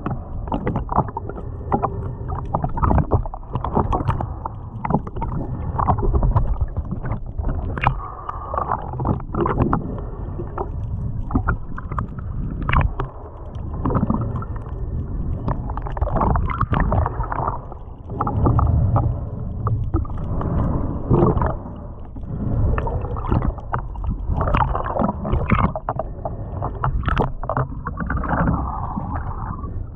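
Muffled water sloshing and gurgling, with frequent irregular knocks and surges.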